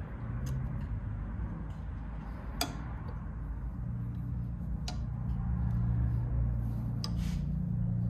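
Sharp metallic clicks and clinks of hand tools working on an outboard motor's carburetor fittings, a few of them spaced about two seconds apart, over a steady low hum.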